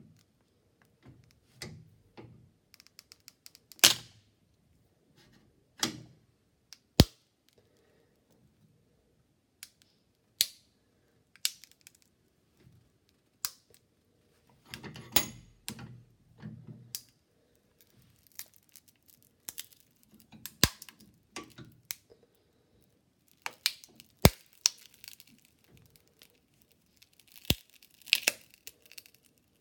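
Mobile phone being crushed in a press: irregular sharp cracks and snaps of the screen and casing breaking, with short bursts of crackling about halfway through and again near the end.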